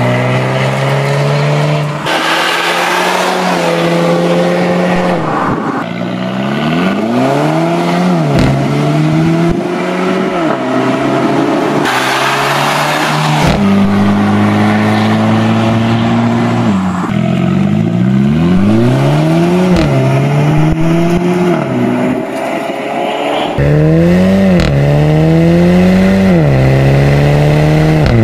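Mercedes-Benz A250's turbocharged 2.0-litre four-cylinder, breathing through a Fi valved cat-back exhaust, accelerating hard through the gears on several passes. Each time the engine note climbs, drops sharply at an upshift and climbs again, and the sound changes abruptly between runs.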